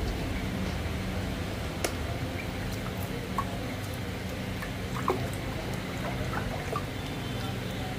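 Ducklings moving about in a shallow plastic tray of water, making small splashes and drips. A few sharper splashes come about two, three and a half, and five seconds in, over a steady low hum.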